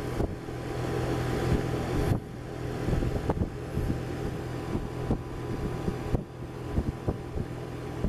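Outdoor unit of a 5-ton R410A heat pump running while being charged, with the compressor and condenser fan giving a steady low hum under a rush of air. Irregular light knocks and rustles from handling on the microphone come through on top.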